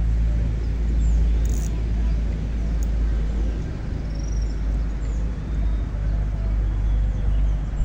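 Low, steady, gusting rumble of wind on the microphone, with a few faint high chirps of birds.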